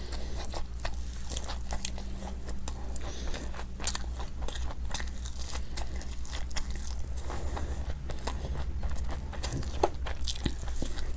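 Close-miked eating of crisp fried snacks such as pakoda: bites and chewing with many sharp, crackly crunches, over a steady low hum.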